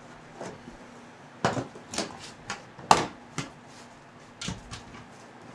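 Plastic interior trim on a 2009 Toyota Corolla's door sill being pulled off by hand, its retaining clips popping out: about half a dozen sharp snaps and clicks over some three seconds, the loudest about three seconds in.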